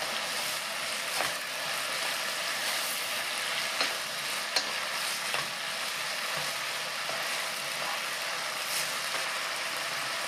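Dried acorn jelly strips and sliced vegetables sizzling in a frying pan as a wooden spoon stirs them, with a few sharp clicks of the spoon against the pan. The soy-sauce liquid has nearly cooked down.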